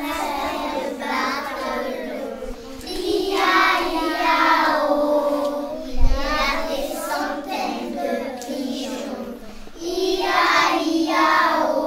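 A group of young children singing together, with a single dull thump about halfway through.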